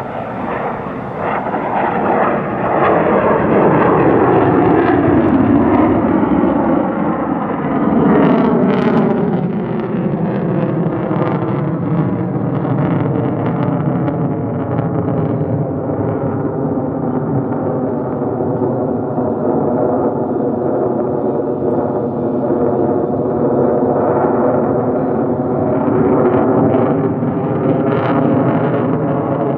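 Roar of an F-35A Lightning II's single F135 turbofan engine as the jet flies its airshow demonstration. The roar is loudest in the first third, with sweeping tones that fall in pitch as the jet passes and rise again near the end.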